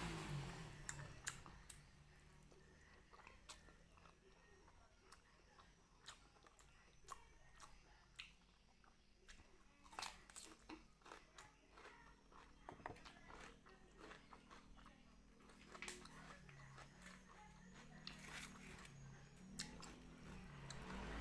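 Close-miked chewing and biting of spicy beef-skin kikil, a faint run of many short mouth clicks and small crunches.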